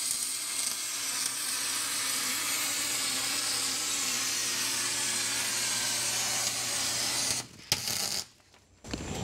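Wire-feed welding arc crackling steadily as a weld bead is run on the steel plate of a boat's bulwark rail, with a faint steady hum from the welder. The arc stops about seven and a half seconds in, strikes again briefly for about half a second, then cuts off.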